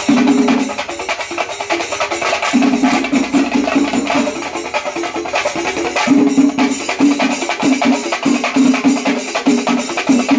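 Music of fast, dense drum strokes with metallic jingling, over a low note sounded again and again in short pulses.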